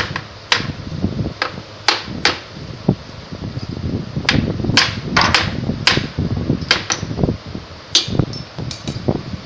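A series of sharp, irregularly spaced knocks and clicks from hand work on the frame pieces, about a dozen or more, over a steady hum.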